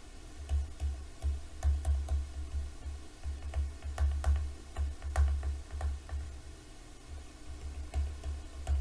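Stylus writing on a touchscreen or tablet: an irregular run of low thuds and sharp taps as the letters are drawn.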